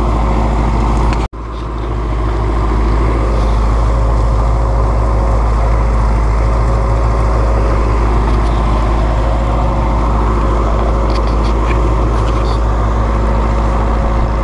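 Tractor engine running steadily under load while pulling through the field, with a brief break in the sound about a second in.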